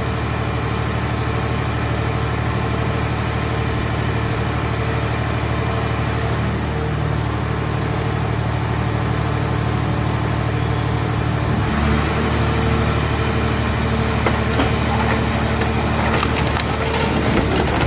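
Scrap car-shell baler's hydraulic power unit running steadily under its motor. About twelve seconds in, the pitch steps up as the load changes. Near the end, scattered cracks and crunches come in as the car body is crushed in the press.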